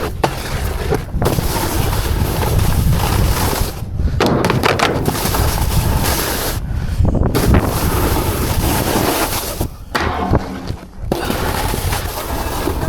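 Wind buffeting a helmet-mounted action camera's microphone while snowboarding, mixed with the board scraping and sliding over snow. The noise drops away briefly four times.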